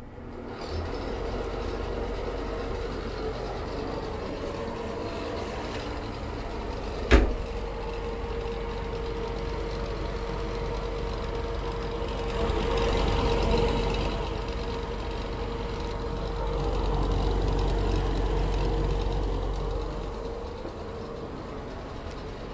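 Old Fasco ceiling exhaust fan running, with a steady hum and a rattle; it is slightly squeaky and very rattly. One sharp knock about seven seconds in.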